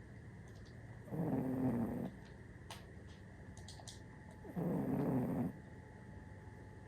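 A sleeping cat snoring: two snores about a second long, some three and a half seconds apart.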